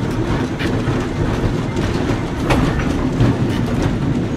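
Vintage Porto-built streetcar running along its tracks, heard from inside the car: a steady rumble from the wheels and trucks, with a few sharp clicks as the wheels pass over the rails.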